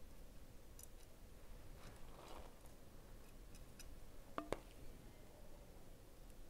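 Faint kitchen handling sounds of rice being spooned into a sheep carcass with a metal utensil: a soft scrape about two seconds in and a sharp metallic clink with a short ring a little after four seconds.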